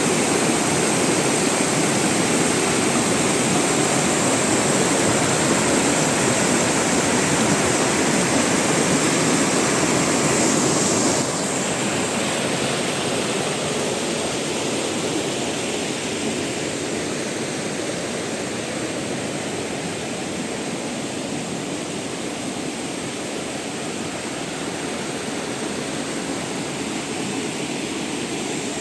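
Rushing river water, a steady even rush that drops suddenly in level about eleven seconds in and stays softer after.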